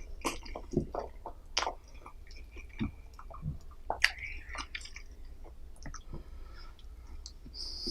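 Close-miked chewing of food: irregular wet mouth clicks and smacks, with pauses between bites.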